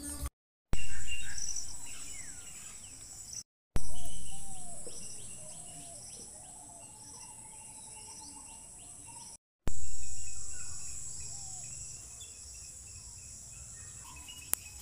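Garden ambience: insects calling in steady high tones, with scattered short bird chirps. The sound drops out briefly three times, and each section starts loud and then fades down.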